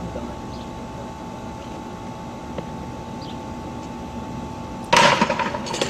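Quiet outdoor background noise with a faint steady tone. About five seconds in, a sudden loud burst of noise lasts about a second.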